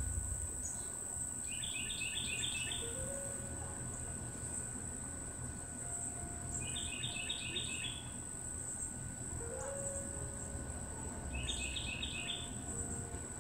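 Garden ambience: a steady high-pitched insect drone, with a songbird singing a short phrase of quick repeated notes three times, about five seconds apart, over a low rumble.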